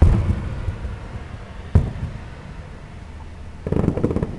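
Aerial firework shells bursting overhead: a heavy boom at the start, a sharp bang a little under two seconds in, and a quick run of crackling pops near the end.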